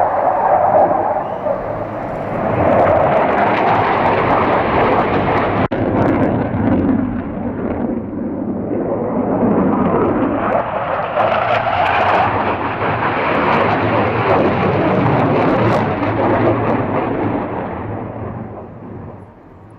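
Tornado GR4 jet with its twin RB199 afterburning turbofans, heard as a loud jet roar as it flies past. The roar dips a little about a third of the way in, swells again, then fades away near the end.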